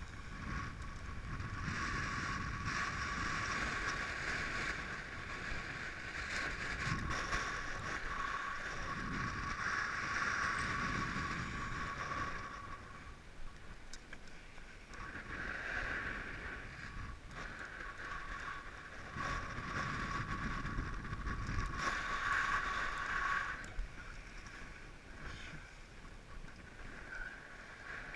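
Wind buffeting an action camera's microphone on a windsurf board, a low rumbling rush with a steady high whistle that drops out twice.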